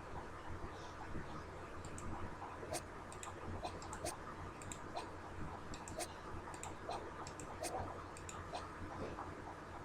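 Scattered, irregular clicks at a computer while code is being set up, over a low steady hum.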